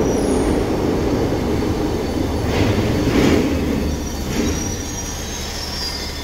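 Glasgow Subway train pulling into a station and slowing: a low rumble of steel wheels on rails that eases off as it slows. It is broken by a few brief hissing bursts about two and a half to four and a half seconds in and by thin, high wheel squeals, strongest near the end.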